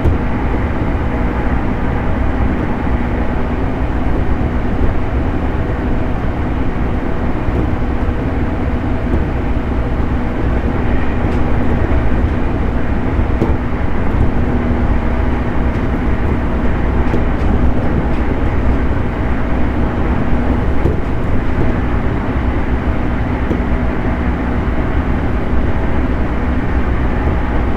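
JR 211 series electric multiple unit running: a steady rumble of wheels on rail, with a constant low hum from the traction motors and gears.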